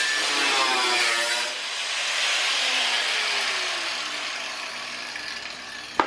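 Grinder cutting the car's sheet-metal body panel, its motor pitch dropping under load, then fading as it winds down. A single sharp knock about six seconds in.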